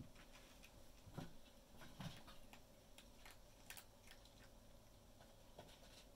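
Near silence with faint, scattered light taps and two soft thumps about one and two seconds in: kittens' paws patting and shifting on a wooden plank floor as they play.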